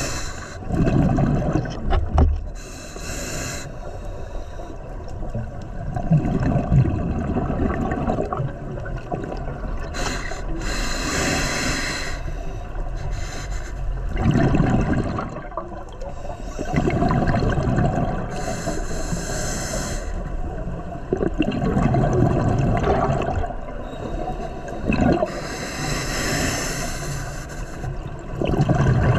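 Scuba diver breathing underwater through a regulator: a hissing inhale every several seconds, each followed by the low bubbling rumble of the exhaled air.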